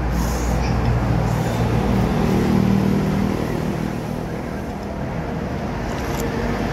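Road traffic passing close by: motorbike and vehicle engines running.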